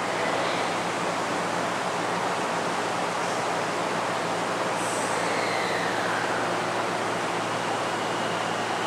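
Train at an underground station platform: a steady rumbling hiss with a low hum, and a falling whine a little past halfway through.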